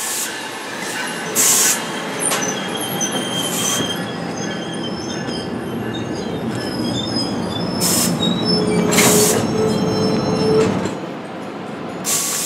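NJ Transit Multilevel bilevel commuter coaches rolling past at close range, their wheels squealing with thin high tones over a steady rumble. Several short bursts of hiss come through, and a lower squeal tone sounds for about two seconds past the middle.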